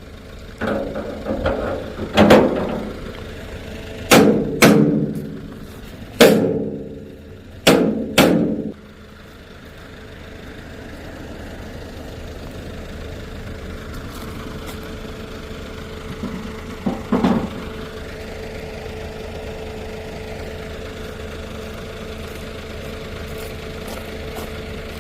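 Heavy knocks of cut oak logs landing, about eight in the first nine seconds, each ringing briefly; then a truck engine idling steadily.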